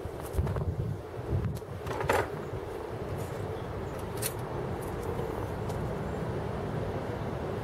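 Steady wind rumble on the microphone, with a few light knocks and clinks of hand tools being handled, the sharpest about two seconds in.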